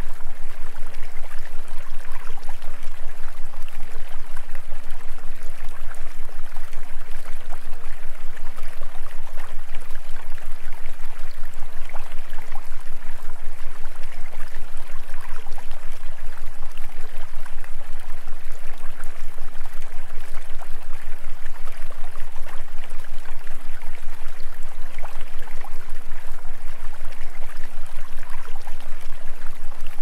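Steady running-water sound like a stream, with a low hum underneath that pulses evenly several times a second.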